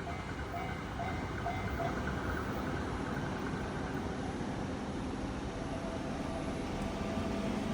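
Steady rumble of a JR 817 series electric train running along the rails at a level crossing.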